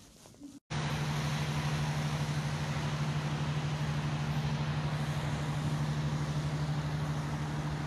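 Road traffic on wet city streets: a steady hiss of noise with a low steady hum under it, cutting in sharply about half a second in.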